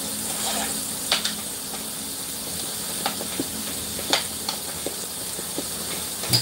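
Steady sizzling hiss from the stovetop pans, with a handful of sharp metal clinks as a utensil stirs and scrapes garlic mashed potatoes in a pot. The loudest clink comes near the end.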